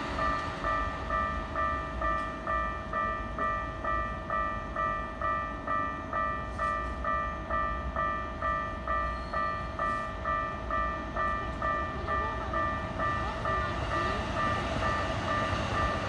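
Japanese railway level crossing's electronic warning bell ringing steadily, about two rings a second, the signal that a train is approaching the crossing. A low rumble runs underneath.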